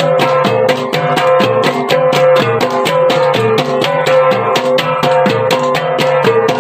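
An ensemble of Igorot gangsa (flat bronze gongs) playing an interlocking rhythm of quick strikes, about five a second. The ringing tones overlap and sustain between hits, over a lower repeating pulse.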